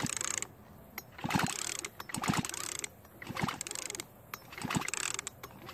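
Poulan two-stroke chainsaw's recoil starter being pulled over again and again, a rasping cord-and-pulley stroke about once a second, with the spark plug out for a spark check so the engine spins freely.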